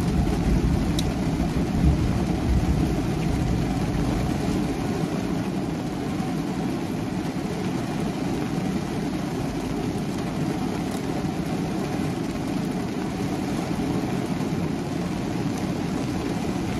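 Heavy rain falling steadily on the roof and windows of a parked car, heard from inside the cabin.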